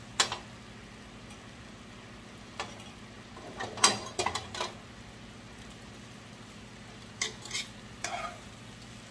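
Metal tongs clicking and scraping against a stainless steel skillet as chicken and vegetables are moved around, in short bursts: once near the start, a cluster about four seconds in, and more near the end. Braising liquid simmers with a faint sizzle underneath.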